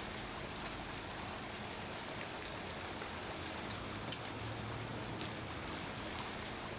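Park fountain jets splashing steadily into the stone basin, with a faint low hum underneath.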